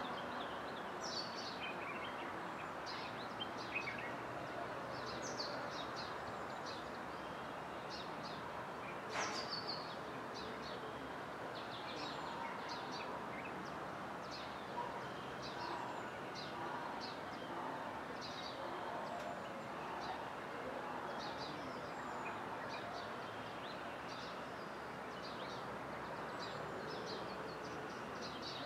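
Dawn chorus of birds: many short, high chirps and calls scattered throughout, over a steady background hiss, with one louder falling call about nine seconds in.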